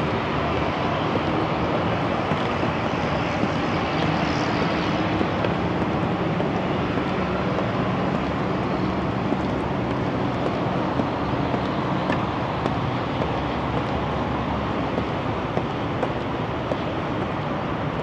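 Steady rush of expressway traffic, with cars passing continuously underneath and a faint hum of engines.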